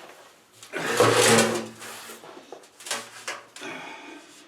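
Angle grinder switched on briefly, its motor whirring for just over a second about a second in and then stopping, followed by a lighter clatter near three seconds.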